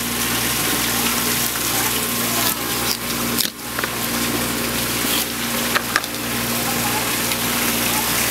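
Steady rushing, water-like noise over a low steady mechanical hum, with a few sharp clicks about two-thirds of the way in as a knife cuts through a kingfish's head.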